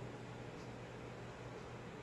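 Steady low hiss with a constant low hum: room tone.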